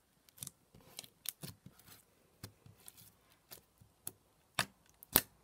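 Glossy slime being pressed and poked by fingers, giving a string of irregular sharp clicks and pops as air pockets in it burst, the loudest near the end.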